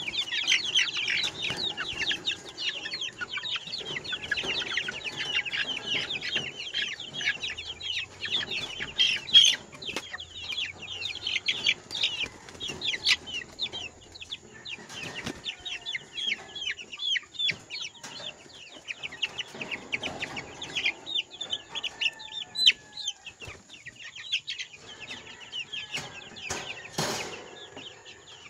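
A flock of month-old chicks peeping, a dense stream of short high chirps that thins out over the second half. A couple of knocks can be heard.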